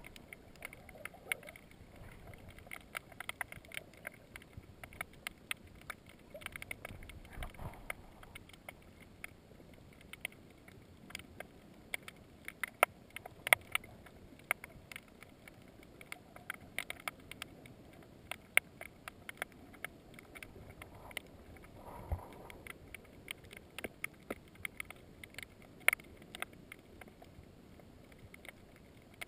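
Underwater ambience at a rocky reef, recorded through a camera's waterproof housing: a low, even rush of water with many irregular sharp clicks and crackles throughout. A few clicks are much louder than the rest, and the rush swells briefly twice.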